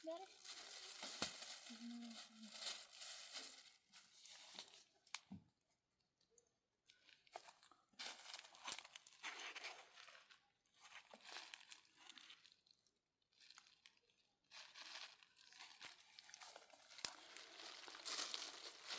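Faint rustling and crinkling in irregular bursts of one to three seconds, with short quiet gaps and a few sharp clicks between them.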